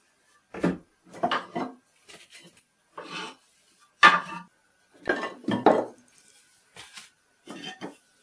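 Wooden offcuts knocking and clattering against each other as they are picked up and set down by hand, a dozen or so separate knocks with the loudest about four seconds in.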